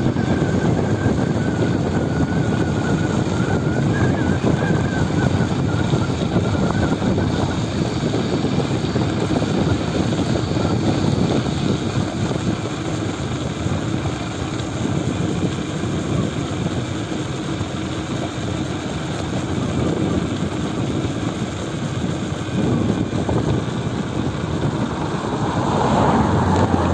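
Steady rush of wind over the microphone and road noise from a bicycle coasting fast down an asphalt road. Near the end it swells louder as cars pass close by.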